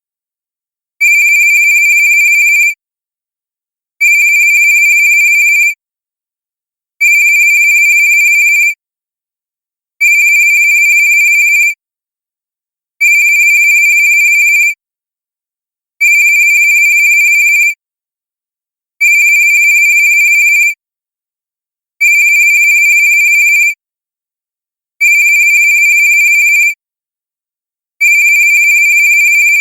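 Cartoon-style cell phone ringtone: a bright, high-pitched electronic ring lasting under two seconds, repeating evenly every three seconds with silence between, ten rings in all.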